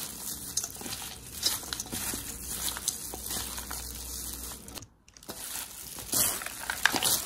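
Hands in thin plastic food gloves mixing sticky glutinous rice with peanuts, peas and corn in a stainless steel bowl: a run of crinkling and rustling, with a brief silent gap about five seconds in.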